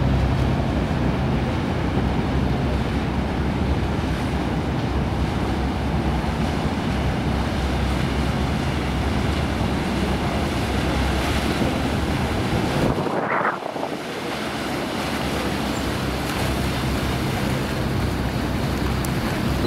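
Harbour water sloshing against the wharf and wind on the microphone, over the low steady rumble of a large cruise catamaran's engines as it comes alongside. About two-thirds of the way through the low rumble drops away for a moment, and a short squeal rises and falls.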